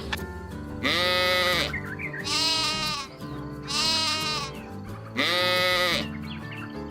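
Sheep bleating four times, each a loud wavering call a little under a second long, about a second and a half apart, over background music.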